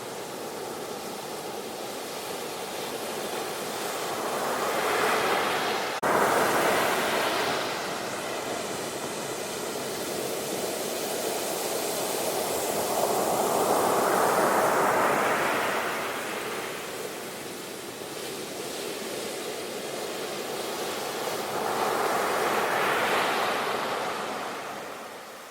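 Sea waves washing in and drawing back, a steady rushing that swells and fades three times, roughly every eight to nine seconds. The level jumps suddenly about six seconds in.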